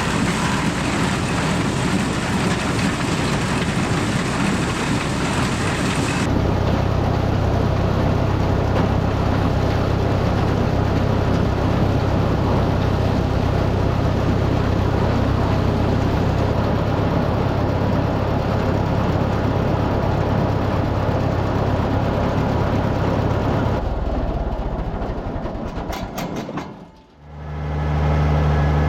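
Farm tractor engine and harvest machinery running steadily. The sound changes abruptly about six seconds in and dips out briefly near the end, then comes back as a steadier low engine hum.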